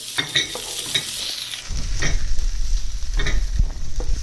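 A utensil scraping and stirring potato and onion pieces as they fry in oil in a pan, in repeated short strokes over a steady sizzle. A low rumble comes in a little before halfway.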